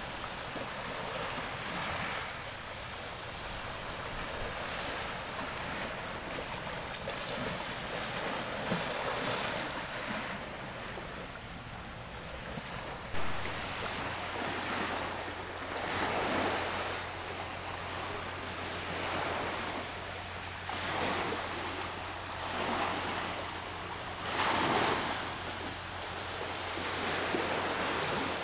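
Small sea waves washing onto a rocky shore, the surf swelling and falling away every few seconds, with wind buffeting the microphone.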